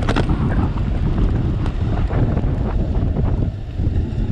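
Wind buffeting the microphone of a camera riding along on a moving bicycle: a steady low rumble of air noise, with scattered light clicks and rattles.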